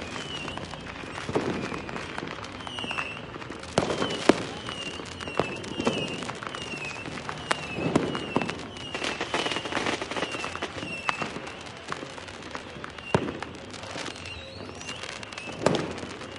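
Fireworks and firecrackers going off: scattered sharp bangs and crackles with several deeper booms, the loudest about four seconds in. A short high chirp repeats about twice a second through most of it.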